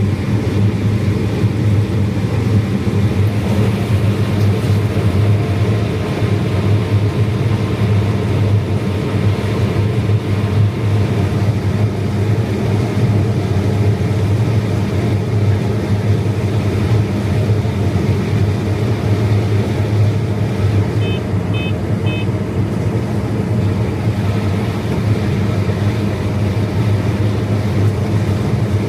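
Heavy farm machinery engine running at a steady drone, with three short electronic beeps about 21 seconds in.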